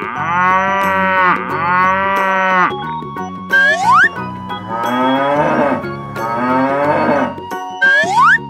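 Cow mooing: two long moos, then two more lower-pitched ones, each call bending in pitch. A short rising whistle-like glide comes between the pairs and again near the end, over quiet background music.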